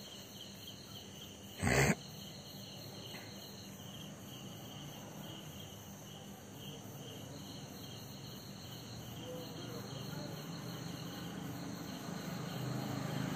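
Crickets chirping steadily, a high pulsing trill at about three pulses a second. A brief loud burst of noise about two seconds in, and a low rumble building near the end.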